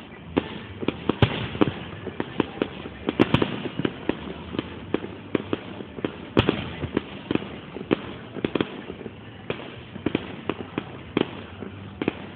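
Fireworks going off: an irregular run of sharp bangs and pops, several a second, loudest in the first few seconds.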